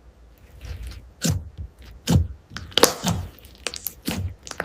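Hands pressing and squishing ASMR foam: a run of sharp squishes, about two a second, each with a low thump.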